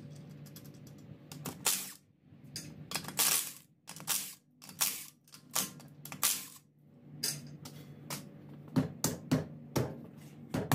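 Cordless impact wrench hammering in short bursts, six or seven of them, undoing the wheel's lug bolts. A faint steady hum runs underneath.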